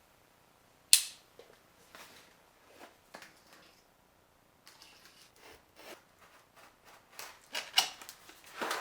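Keyboard box being opened: a sharp snap about a second in, then rustling and scattered clicks of cardboard and packaging being handled, louder again near the end.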